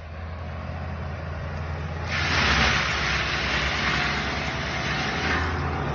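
A land-clearing machine's engine running steadily in the background. From about two seconds in, a louder rushing noise swells for about three seconds, then eases.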